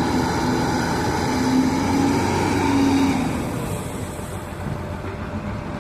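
Diesel engine of a backhoe loader running, with a steady low hum and a wavering tone over it. The tone stops about three seconds in and the sound gets somewhat quieter.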